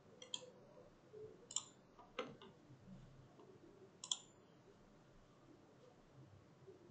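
A few faint, sharp computer mouse clicks, about four spread over several seconds, in near silence.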